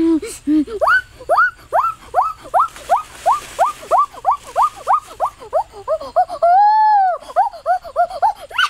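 An animal's high whining yelps in a fast, regular run of about three a second, each rising sharply and falling back. A little past halfway comes one longer drawn-out whine, followed by shorter, lower yelps.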